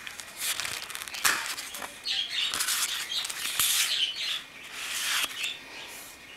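Paper and cardstock pages of a handmade spiral-bound recipe book rustling as they are handled and turned, in irregular bursts with a couple of sharp paper snaps.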